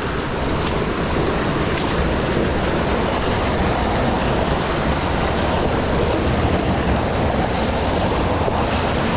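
Steady rushing of water through a creek rapid.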